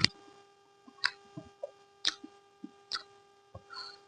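Close-up chewing: moist mouth clicks and lip smacks about once a second, over a faint steady electrical hum.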